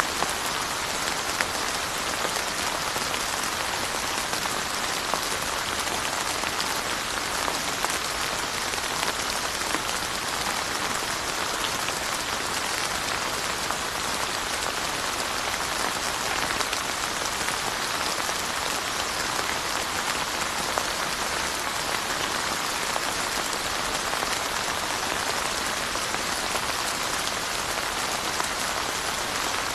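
Steady rain falling, an even hiss of rainfall with many individual drops ticking on surfaces.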